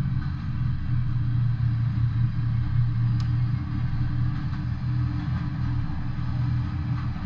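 Steady low rumble of a freight train's cars rolling along the track, with a few faint clicks.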